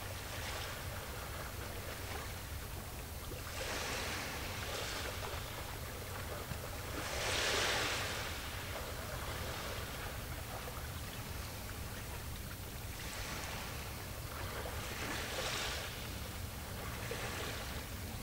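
Small waves washing in on the shore every few seconds, each a short swell of hiss, the loudest about halfway through, over a steady low rumble.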